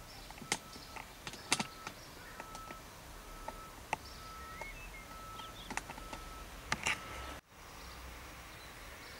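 Quiet outdoor ambience with scattered light clicks and ticks and a couple of faint bird chirps; the sound drops out for an instant near the end.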